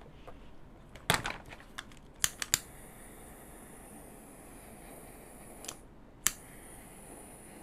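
A few sharp clicks and knocks, then a steady high hiss that starts just after a quick run of clicks, stops briefly and comes back after another click. This fits a small gas torch, lit and relit, heating heat-shrink tubing over a soldered wire joint.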